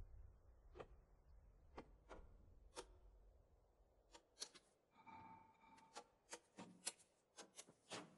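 Faint ticks of the first raindrops falling: at first about one a second, then coming quicker and denser from about halfway, one of them ringing briefly near the middle.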